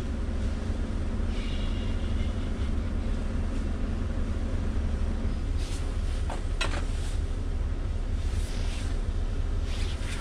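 Scania S650's V8 diesel engine idling steadily, heard from inside the cab, with a couple of sharp clicks about six and a half seconds in.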